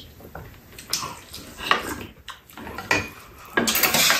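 Spoon and chopsticks clinking and scraping against a frying pan and bowls, with a few separate clicks and then a longer, louder scrape near the end as egg is scooped from the pan.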